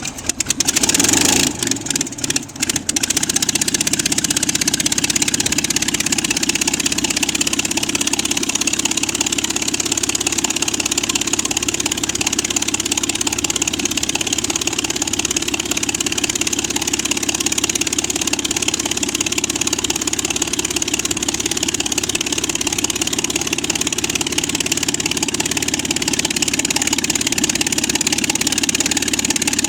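The piston engine of a Yak-1 replica airplane just after start-up. It fires unevenly for the first two or three seconds, then settles into a steady, smooth idle.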